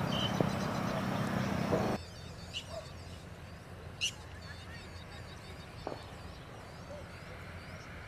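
A steady rushing noise that cuts off suddenly about two seconds in. It leaves faint, high twittering of small birds, with a few short, sharper chirps standing out.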